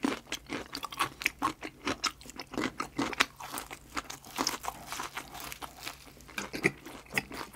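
Crunchy chewing of cubed radish kimchi (kkakdugi) picked up by a clip-on mic: a run of short, irregular crisp crunches a few per second.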